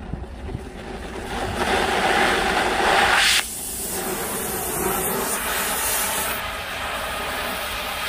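Oxy-fuel cutting torch hissing: the gas flow swells to a loud hiss, cuts down suddenly about three and a half seconds in, then settles into a steady hiss as the flame heats the steel plate.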